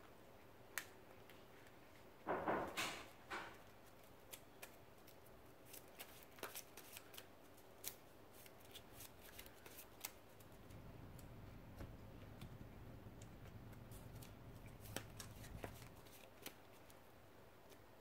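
Trading cards being shuffled and handled off to the side: a short rustling burst about two seconds in, then a long run of scattered small clicks and snaps, with a low hum underneath from about ten to sixteen seconds in.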